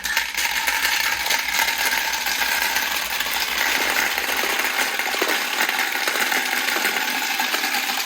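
A stampede of many marbles released at once, rattling and clattering down plastic marble-run track and magnetic tiles in a dense, loud, continuous clatter.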